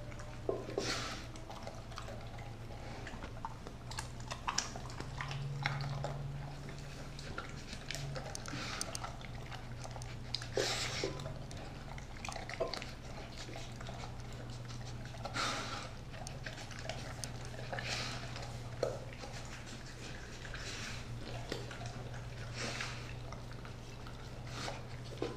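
Doberman eating a wet raw-meat meal from a ceramic bowl: irregular wet smacks, chewing and licking as it laps up the food.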